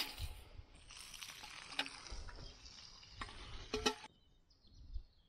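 Water splashing into a metal bucket, with a few light knocks on the bucket. The loudest knock comes just before the sound cuts off abruptly about four seconds in.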